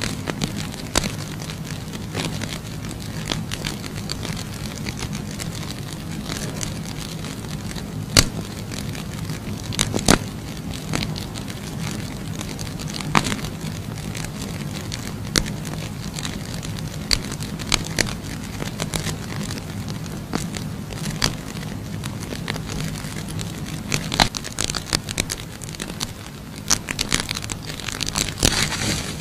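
Burning safety matches crackling, with irregular sharp pops over a steady low hum; the pops come thicker near the end.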